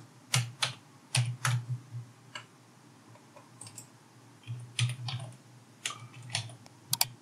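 Computer keyboard keystrokes: short sharp taps in irregular runs of two or three with pauses between, as numbers are typed into spreadsheet cells.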